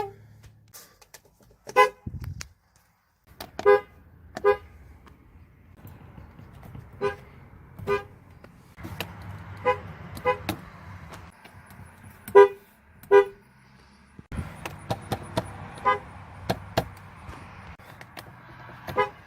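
Horns of several Ford vehicles sounding one after another: short pitched toots, mostly in pairs about a second apart, then a quicker run of short beeps near the end. An engine idles under some of them.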